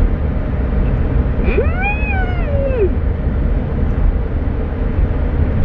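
A pet's single drawn-out whining call, rising then falling in pitch, starting about a second and a half in and lasting just over a second, over the steady low rumble of a car interior.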